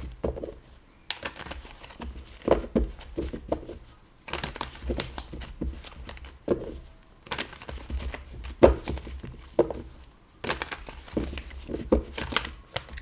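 A deck of tarot cards being shuffled by hand: quick runs of cards riffling and slapping together, broken by brief pauses about a second in, around four seconds and around ten seconds.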